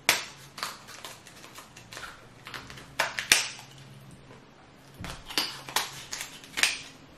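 Kitchen shears snipping through the shell of a cooked lobster leg: a series of sharp, irregular crunching snips.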